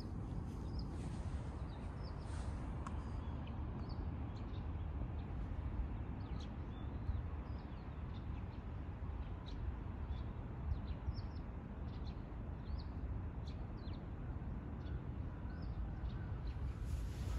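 Small birds chirping: many short, high chirps scattered throughout, over a steady low rumble.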